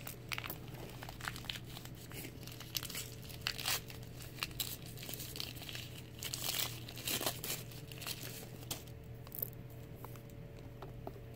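Protective wrapping on a handbag's chain strap crinkling and rustling as it is handled and pulled, in irregular sharp crackles that come thickest about three to four and six to seven seconds in.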